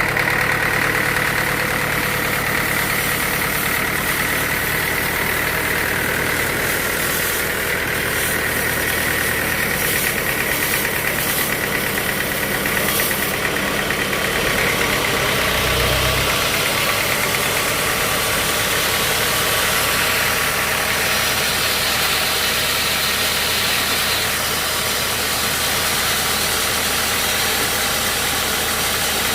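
Sawmill machinery running steadily: an engine drone with a high whine in the first half that fades out.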